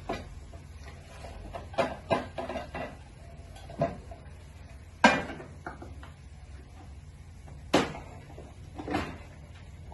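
A stainless saucepan knocking and scraping against a plastic blender jar as the cooked chipotle sauce mixture is emptied into it: a series of separate clinks and knocks, the loudest about five seconds in. Near the end the jar is set down on the blender base with a clunk.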